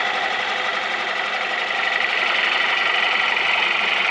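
Wood lathe spinning a bowl while a bowl gouge makes a hollowing cut: a steady whirring, hissing cut with high steady tones, growing a little louder about two seconds in.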